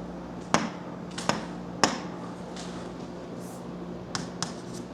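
Five sharp clicks or taps, three in the first two seconds and two close together near the end, over a faint steady low hum, made while lines are being drawn on a chart.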